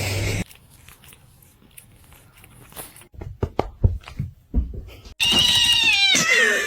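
Domestic cat yowling: a loud, drawn-out call that falls in pitch at its end, about five seconds in. A few short knocks come just before it.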